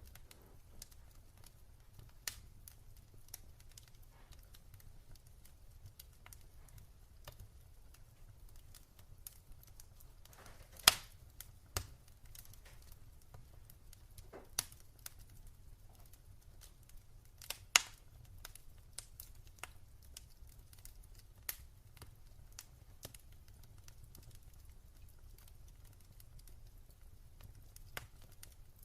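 Wood fire burning in a fireplace: scattered crackles and sharp pops over a low steady rumble, with a few louder pops around the middle.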